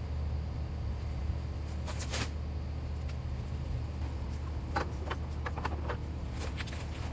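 Palm fronds rustling and crackling in short bursts as they are grabbed and cut, over a steady low hum.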